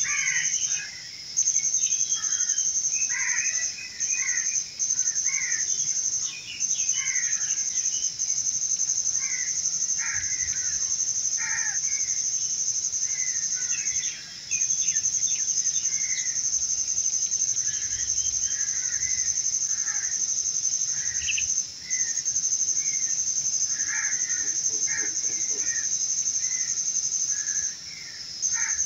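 Crickets or similar insects keep up a loud, steady high-pitched trill that breaks off briefly every few seconds. Over it, birds give many short chirps and calls.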